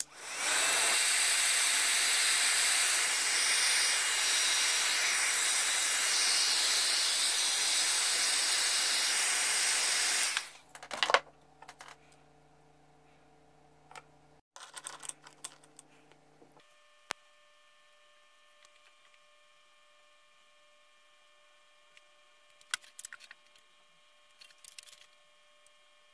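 Hot-air blower running with a steady, loud rushing hiss, switched off about ten seconds in. After that there is only a faint hum and a few light handling clicks.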